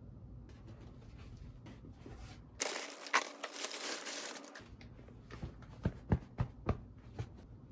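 Clear plastic wrapping crinkling loudly for about two seconds as a pillow is pulled out of its cardboard box, followed by a few sharp knocks and rustles as the pillow and box are handled.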